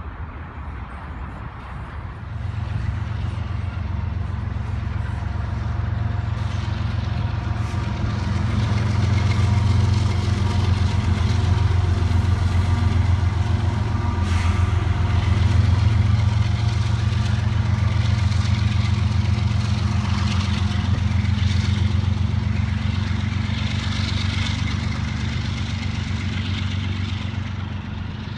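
A CN diesel locomotive hauling a double-stack container train passes at speed: a steady low engine drone with wheel and rail noise over it. It grows louder a couple of seconds in, is loudest as the locomotive goes by, and eases slightly near the end as the container cars keep rolling.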